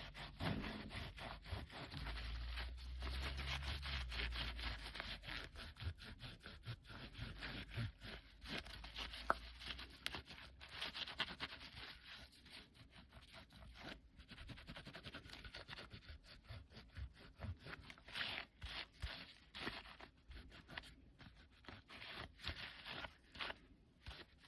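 Paper towel dampened with rubbing alcohol wiping the inside of a disc repair machine: faint, irregular rubbing and scraping strokes, with a low rumble from about two to six seconds in.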